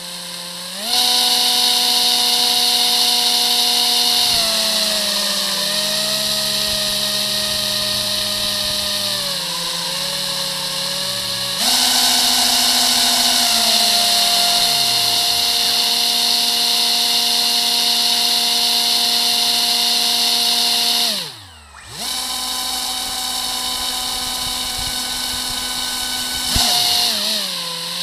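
Two salvaged quadcopter motors spinning propellers on a homemade RC airboat: a loud steady whine that steps up and down in pitch as the throttle changes. About three quarters of the way through they drop almost to a stop for a moment, then spin back up.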